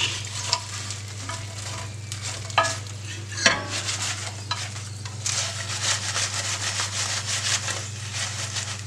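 Hot roasted potato wedges sizzling in oil in a glass roasting dish as a spatula stirs and turns them, with two sharper knocks of the dish or spatula about two and a half and three and a half seconds in, over a steady low hum.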